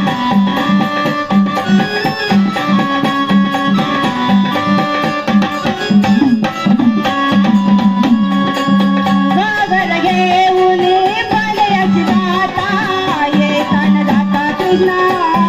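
Marathi gondhal devotional folk music: hand drums keep a steady rhythm under a melodic instrument line, and a singing voice comes in about nine seconds in.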